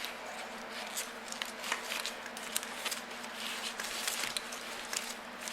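Old car wiring harness being handled: scattered small clicks, taps and crinkles of wires, connectors and brittle tape, over a steady low electrical hum.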